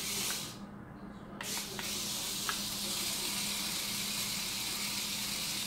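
Adventure Force Stunt Runner mini RC car's small electric motors running with a high whirring hiss as it drives over a tile floor, cutting out for a moment about a second in, with a few light clicks.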